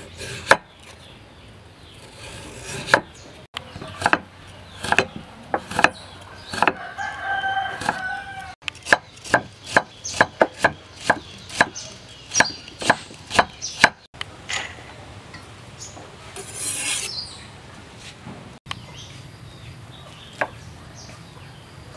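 Steel cleaver chopping carrot on a thick wooden chopping block: separate knocks at first, then a quick run of chops about three a second. A rooster crows in the background partway through.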